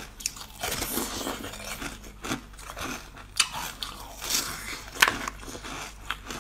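Ice frozen with basil seeds being bitten and chewed close to the microphone: a series of sharp, crisp crunches as the ice cracks between the teeth, the loudest about five seconds in.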